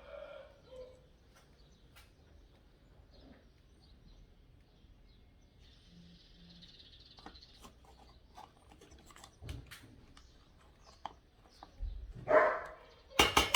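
Faint small clicks and taps from soldering a wire onto an LED leg, with a brief hiss about six seconds in. Near the end a dog barks, the loudest sound.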